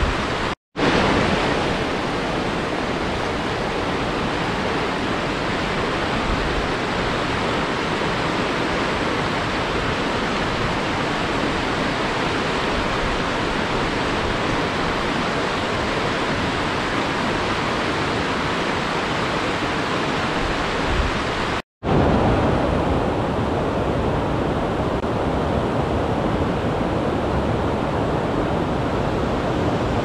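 Steady rush of a fast mountain river running over stones. It breaks off into silence for an instant twice, about a second in and about two-thirds through. After the second break the water sounds duller, with less hiss.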